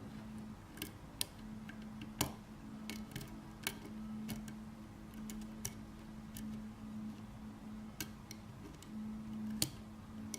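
Irregular sharp metallic clicks of a lock pick and tension wrench working the pins of a six-pin GERA (ISEO) euro pin-tumbler half-cylinder, over a faint steady hum.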